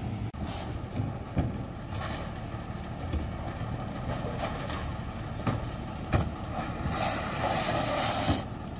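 Freightliner M2 garbage truck's diesel engine idling, with several sharp knocks as a litter bin is tipped into the Heil rear loader's hopper. Near the end comes a rush of trash sliding out of the bin.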